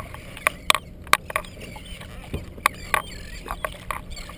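Irregular sharp clicks and knocks, roughly two a second, over a faint hiss, from a fishing kayak and a spinning reel being cranked against a hooked fish.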